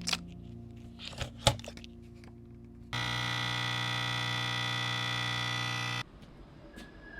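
A few clicks and knocks, then a coffee machine's pump buzzes steadily for about three seconds, starting and stopping abruptly, as it brews a shot.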